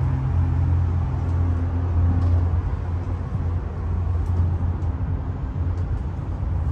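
Steady low hum and rumble of a cable-car gondola cabin travelling along its cableway, heard from inside the cabin.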